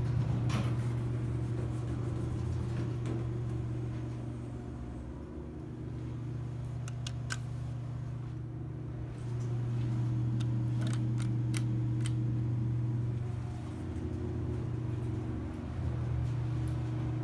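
Dover hydraulic elevator's steady low machine hum, which drops quieter twice, with a few light clicks scattered through it.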